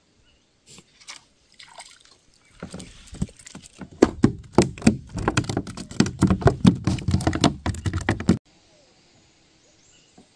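Handling noise on the camera: a dense run of knocks, rubbing and rustling with a low rumble as the camera is moved. It builds over the first few seconds and cuts off abruptly about eight seconds in.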